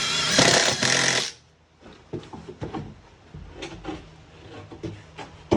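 Power drill driving a #8 GRK screw into wood sheathing: the motor whines and the screw bites in, stopping about a second in. Light clicks and knocks of handling follow, then a sharp knock near the end.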